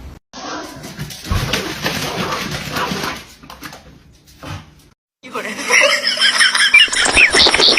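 A dog barking, mixed with people's voices, over short clips that cut off abruptly; the loudest part, about five seconds in, is a rapid run of high-pitched calls.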